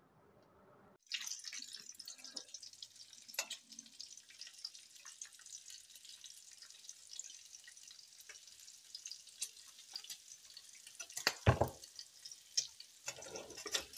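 Pancake batter frying in a hot oiled cast-iron skillet: a steady crackling sizzle that starts suddenly about a second in. A couple of louder bumps come near the end.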